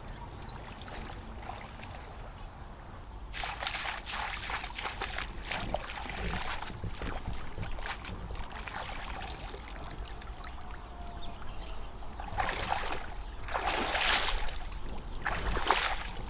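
Water splashing and trickling in irregular bursts, a stretch a few seconds in and louder spells near the end.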